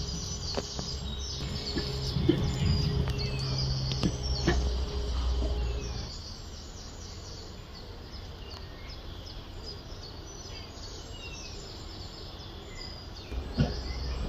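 Small birds chirping over and over in the background. Through the first six seconds there is a low rumble with a steady hum, broken by a few short sharp knocks, and the sound grows louder again near the end.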